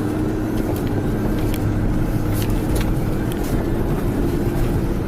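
Mitsubishi Pajero Sport heard from inside the cabin while driving over rough ground: a steady engine and road drone with a steady hum, and scattered short knocks and clicks from the car jolting over the bumps.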